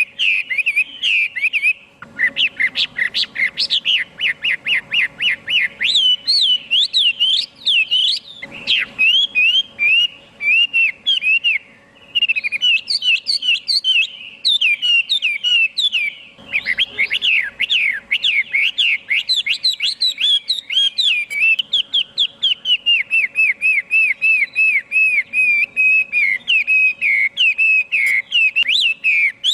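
Chinese hwamei singing: a long, loud run of rapid whistled phrases, sweeping up and down and repeated many times, with a few short breaks.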